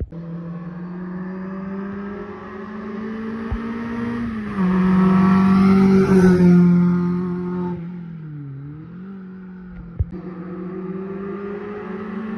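A small hatchback rally car's engine accelerating hard up the stage and passing close by, loudest about five seconds in. The engine note dips briefly about eight seconds in, then rises steadily again as a car approaches.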